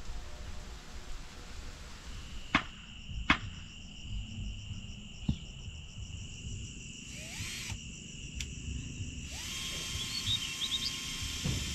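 Outdoor ambience of steadily trilling insects, broken off and changed at each cut between shots. Two sharp clicks or knocks, about two and a half and three and a half seconds in, are the loudest sounds, and a few short chirps come near the end.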